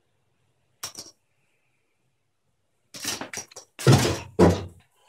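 A sharp click about a second in, then a quick run of knocks and two heavy thumps: a cat bolting down wooden basement stairs.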